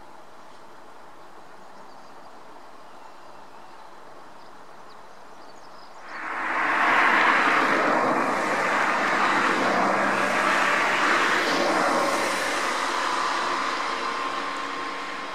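A vehicle passing nearby: a loud noise with a steady engine hum in it swells up sharply about six seconds in, then slowly fades. Before it, only faint outdoor background.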